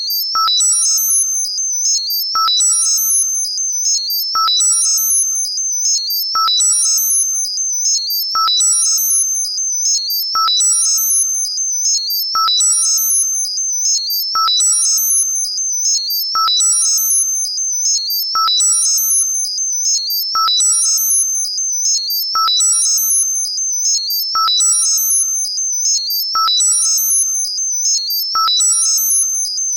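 Synthesized high-pitched sound for tinnitus masking: an electronic pattern that repeats about every two seconds. Each cycle opens with a click and a short ping that dies away, under a cluster of very high flickering tones and a held high whistle.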